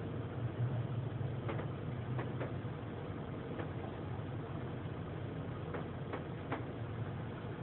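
Low steady hum heard from inside a car in an automatic car wash that has stopped mid-cycle, with irregular ticks of water dripping onto the car.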